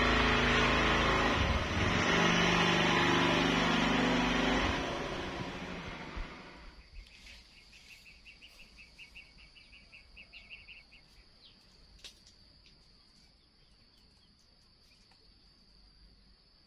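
Small motorbike's engine running at a steady pitch, then fading away over a couple of seconds as it pulls off. After it, a steady high buzz and a brief run of rapid chirps, about five a second.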